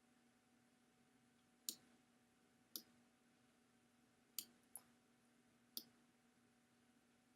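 Computer mouse buttons clicking: five sharp single clicks at uneven spacing, two of them close together about midway, over a faint steady hum.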